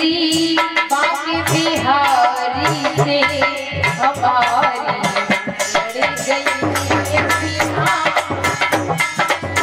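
Live Hindi devotional song (bhajan): a woman's voice singing a wavering, ornamented melody over a fast, steady beat of hand drum and jingling rattle percussion.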